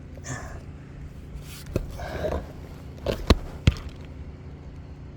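Scraping and rustling on an asphalt shingle roof during a repair, with three sharp knocks, the last two loudest and less than half a second apart.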